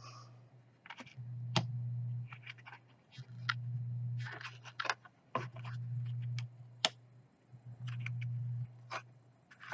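Thick, textured tarot cards being turned over one by one and slid onto a pile on a table, making scattered scrapes and sharp clicks. A low hum comes and goes in stretches of about a second underneath.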